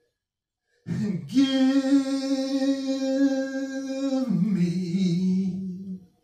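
A man singing unaccompanied, holding a long note with no words: after a short silence it scoops up into the note about a second in, steps down to a lower note about four seconds in and stops about six seconds in.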